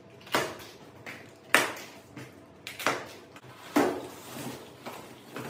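Cabinet parts being handled: four loud clunks about a second apart, with softer knocks between.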